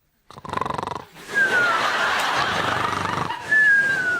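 A man's voice making improvised comic sound effects: animal-like growls and noises, with two falling whistle-like glides, the second and louder one near the end.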